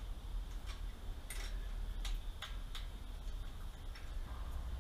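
Scattered light metallic clicks of an Allen (hex) key working on Allen bolts on a V8's intake manifold, about seven irregular ticks spread over a few seconds.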